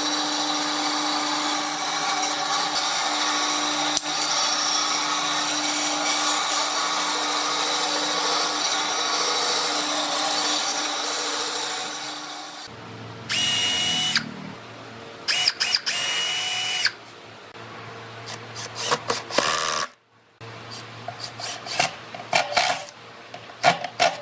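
A handheld power tool running steadily on wood for about twelve seconds, then stopping. After that come short bursts of tool noise and scattered clicks and knocks.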